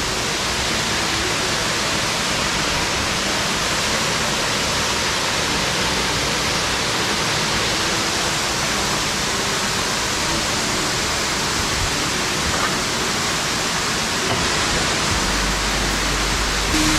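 Waterfall pouring: a loud, steady, even rush of falling water.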